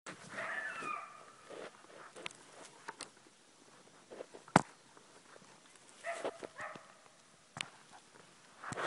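An agitated coyote barking in two short bouts, near the start and again about six seconds in, in answer to predator calls. A single sharp click about halfway through.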